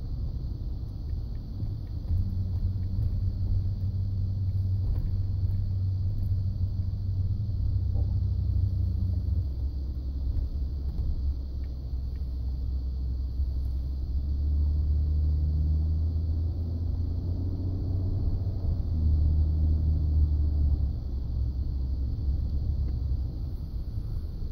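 Ford F-150 making a low grinding rumble that comes and goes in about three stretches of a few seconds each, dropping in pitch partway through the first. This is the grinding noise the truck makes when the steering wheel is turned.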